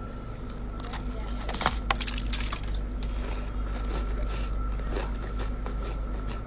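Chest-freezer frost ice being crunched, a dense run of crackling and crunching with a few loud sharp cracks between one and a half and two and a half seconds in.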